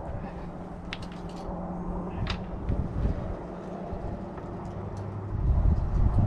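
A distant engine drone: a steady low hum that grows into a louder rumble about five seconds in, with a few light clicks from hand work on the plow parts.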